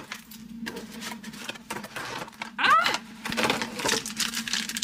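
Plastic packaging of a boxed figure being handled: scattered light clicks and crinkles. About halfway through, a short pitched vocal sound that bends upward is the loudest thing heard.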